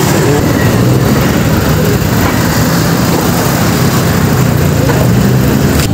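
Street traffic with small motorcycle engines running close by, a steady engine sound over road noise.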